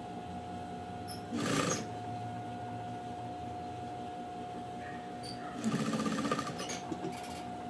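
Sewing machine stitching in two short runs: one of about half a second, a little over a second in, and a longer one of nearly a second, about six seconds in.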